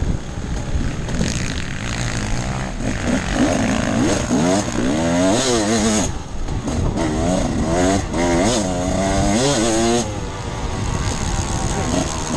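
Off-road enduro motorcycle engine under hard riding, its pitch repeatedly climbing and falling as the throttle is opened and closed and the gears change, with short lulls about six and ten seconds in.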